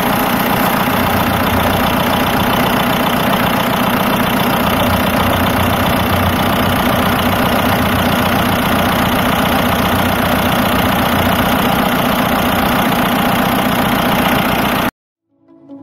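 2011 Mitsubishi Challenger engine idling steadily with an even, rapid beat. It cuts off abruptly about a second before the end.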